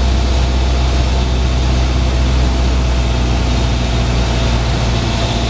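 Light single-engine Cessna's piston engine and propeller droning steadily, heard inside the cabin with a hiss of airflow over it, the plane slowed for landing on final approach.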